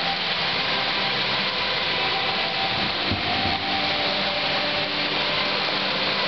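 Steady room noise of an indoor swimming pool: an even hiss with a faint hum and no distinct events.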